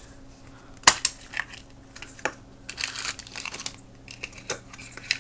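A hard plastic toy capsule snapping open with one sharp click about a second in, then the plastic-wrapped packet inside crinkling as it is handled.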